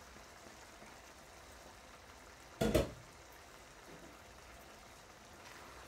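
Thick kidney-bean curry simmering uncovered in a sauté pan, a faint steady bubbling. About two and a half seconds in, the pan's glass lid is set down with a short double clatter, the loudest sound.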